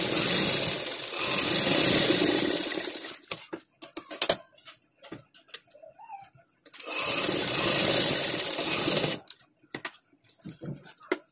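Sewing machine stitching a seam through fabric in two runs: about three seconds at the start, then about two and a half seconds a little past the middle. Short clicks and fabric handling come between and after the runs.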